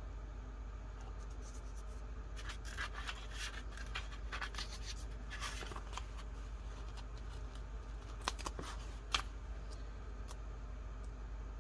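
Paper and sticker sheets being handled: intermittent rustling, light scraping and crinkling, with two sharp clicks or taps about eight and nine seconds in. A steady low hum runs underneath.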